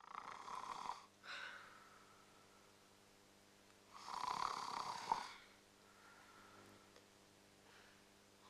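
A person snoring: two snores about four seconds apart, each lasting about a second, the first followed by a brief shorter one.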